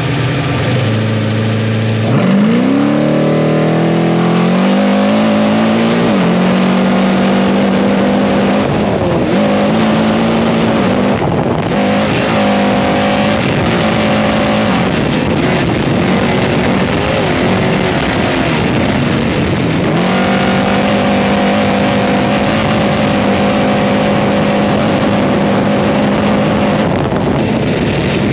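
Trophy truck's race engine heard from inside the cab, revving up from a start about two seconds in and then running hard at high revs. The pitch drops briefly several times as it changes up through the gears, over steady wind and road noise.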